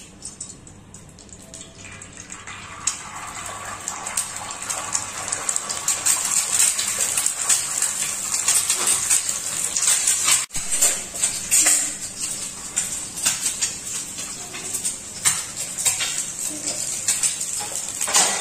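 An egg frying in oil on a flat iron tawa: sizzling that builds up over the first few seconds after the egg is dropped onto the hot griddle, then carries on with many sharp spits and pops.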